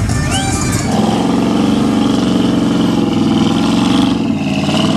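Lifted pickup mud truck's engine revving hard, coming in about a second in and holding loud for about four seconds before dropping away near the end.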